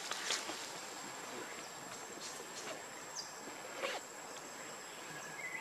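Outdoor ambience with a steady, high-pitched insect drone, like a cricket, running throughout, and a few short soft clicks and rustles.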